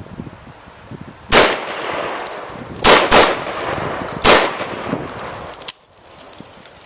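Four shots from a Saiga 12 semi-automatic 12-gauge shotgun: one, then a quick pair about a second and a half later, then a last shot about a second after that. Each shot trails off in an echo.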